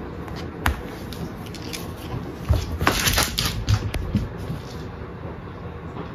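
A single tap, then a cluster of soft thumps and sharp taps about two and a half to four seconds in, over a steady low room hum.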